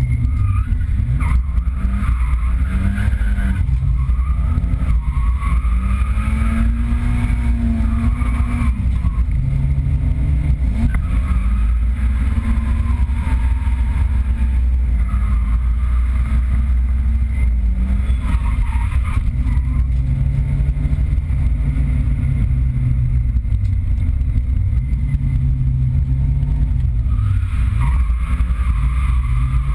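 Nissan 200SX engine heard from inside the cabin during drift laps, its revs rising and falling repeatedly every few seconds over a heavy low rumble.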